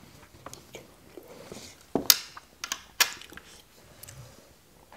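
Close-miked eating of a noodle salad: chewing and mouth noises, with two sharp smacks about two and three seconds in.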